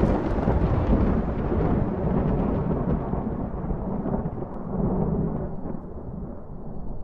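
Thunder rumbling and slowly dying away, the higher crackle fading first and the low rumble lasting longest, with a brief swell about five seconds in.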